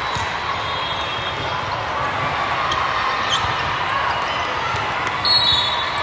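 Steady din of an indoor volleyball tournament hall: volleyballs being hit and bouncing, with a few sharp knocks over a constant background of voices. A brief, louder high-pitched sound about five seconds in.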